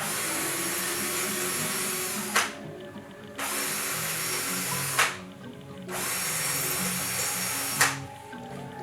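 Power drill run in three bursts of about two seconds each, each ending with a sharp spike as it stops, typical of deburring holes in wing-skeleton parts.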